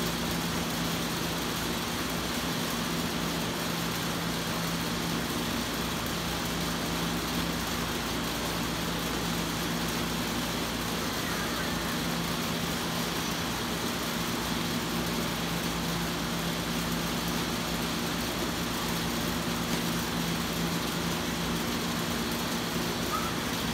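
Steady mechanical hum with a constant hiss over it, unchanging throughout.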